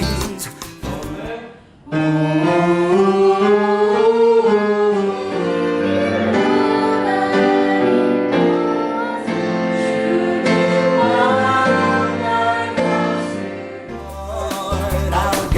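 Music with singing: the music drops away briefly about two seconds in, then a slow sung passage over held chords, changing to a fuller band sound with a strong bass near the end.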